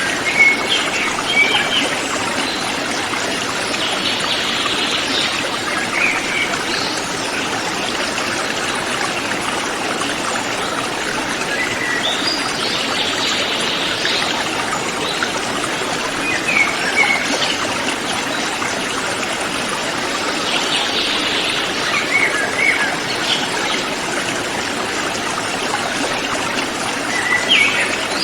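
Mountain river flowing with a steady rush of water, while forest birds call now and then over it. The calls are short chirps and a buzzy call that comes back roughly every eight seconds.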